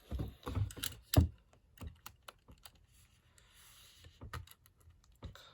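Irregular clicks and taps of hands handling a shrink-wrapped vinyl LP jacket while the plastic wrap is opened, with a soft scratchy rustle of the plastic about three seconds in.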